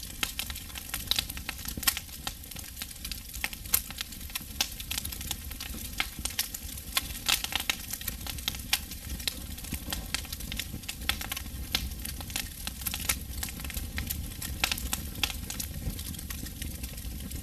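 Wood campfire burning, crackling with many irregular sharp pops over a steady hiss.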